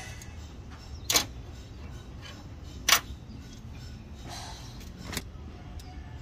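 Two sharp metallic clinks, about two seconds apart, with a fainter one later: a metal hand tool striking parts of the exposed engine top-end. A steady low rumble runs underneath.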